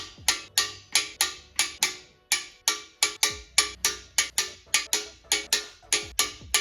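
Background music with a steady percussive beat of about three sharp, ringing hits a second, starting abruptly.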